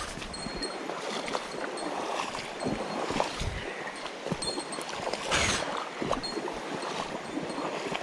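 Mountain stream water rushing and splashing, with irregular sloshes throughout and a louder splash about five and a half seconds in.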